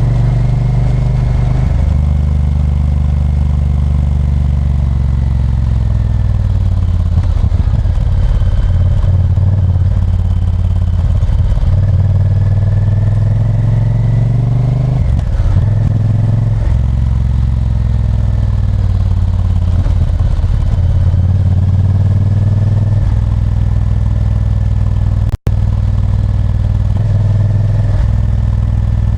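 Honda Varadero 1000's 90° V-twin engine pulling through the gears: the pitch climbs under throttle, drops at each shift, and eases off on overrun several times. About 25 seconds in, the sound cuts out for a split second.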